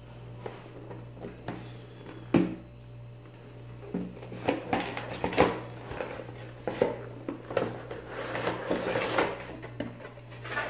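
Cardboard toy box and its clear plastic tray being handled and opened: scattered knocks, taps and scrapes, with one sharp knock a little over two seconds in and busier handling and rustling from about four seconds on. A steady low hum runs underneath.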